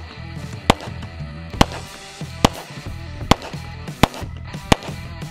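Six pistol shots fired at a steady pace, about one every 0.8 seconds, over background music.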